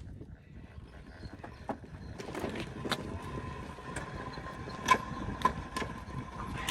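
A heavily loaded hand-pulled cart with failed brakes rolling downhill on the road while being held back on foot, with uneven footsteps and knocks and a steady thin squeal that sets in about a second in.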